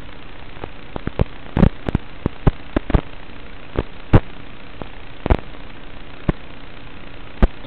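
Steady hiss of static from an analog FPV video receiver, broken by irregular sharp crackling pops, about one or two a second.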